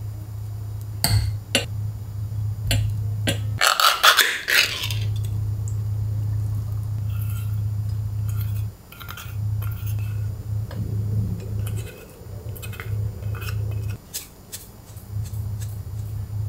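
Kitchen prep sounds: a plastic food packet crinkling loudly for about a second, then small clinks and scrapes as chopped vegetables are scraped off a metal bowl with a spatula into a stainless pan. A steady low hum runs underneath and drops out briefly several times.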